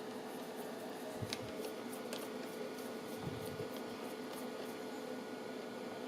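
Faint scattered clicks and light taps of a small screwdriver and screws being worked on a laptop's cooling-system mounting, over a steady low hum.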